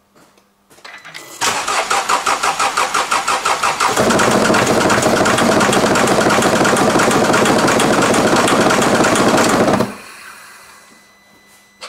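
Mercedes OM651 four-cylinder common-rail diesel cranked by the starter with a rhythmic pulsing, catching about four seconds in and running steadily until it cuts off near the end. It starts with cylinder two's injector unplugged, which the mechanic takes as the sign that cylinder two is bad.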